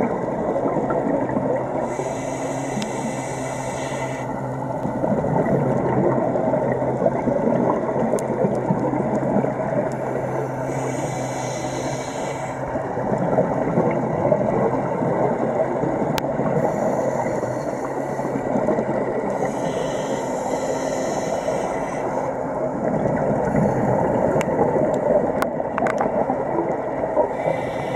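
Underwater recording of a scuba diver's breathing: a steady low rumble of the sea, broken five times by a hiss of about two seconds as the diver breathes through the regulator.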